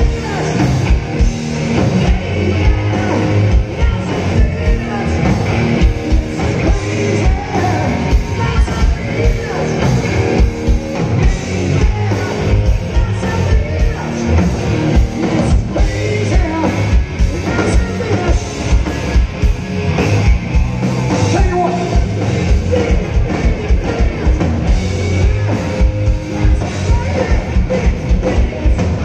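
Hard rock band playing live through a PA: distorted electric guitar, bass and a pounding drum kit under a lead singer. Heard from the crowd as loud, full, steady music.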